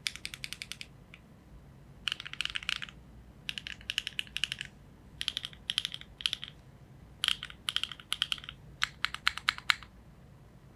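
Typing on a Neo70 gasket-mount mechanical keyboard with HMX Emo switches, a carbon-fibre plate and GMK keycaps. The keystrokes come in six quick runs separated by short pauses and stop shortly before the end.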